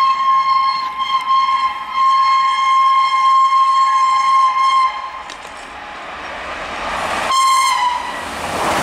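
Electric locomotive air horn sounding long blasts as a steady two-note chord, with a brief break about two seconds in and stopping about five seconds in. Then the rush of a train approaching at speed grows louder, with one more short horn blast, and turns into the loud rush of the train passing near the end.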